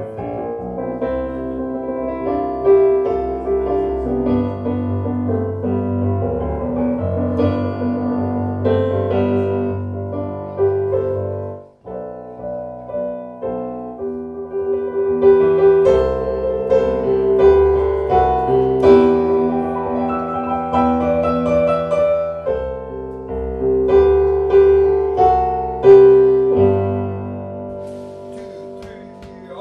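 Live piano played on a digital stage keyboard, chords and melody ringing out. It breaks off briefly about twelve seconds in, then resumes.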